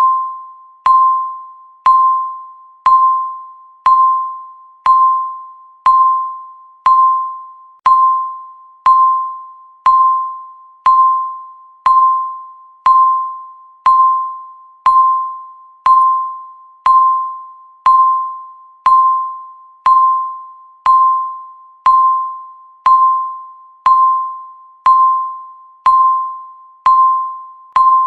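Countdown timer's electronic beep: a single mid-pitched tone that sounds once every second, each beep starting with a click and fading away before the next.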